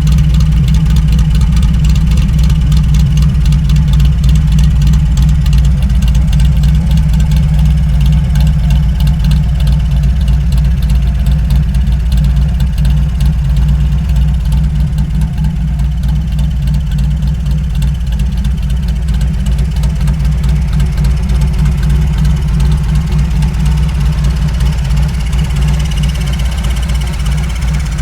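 Early Shovelhead Harley-Davidson V-twin running through a 2-into-1 exhaust, a steady, loud, low exhaust note.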